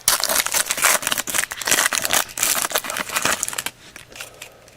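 Trading-card pack wrapper crinkling and crackling as it is opened and handled. The crackle dies down about three and a half seconds in.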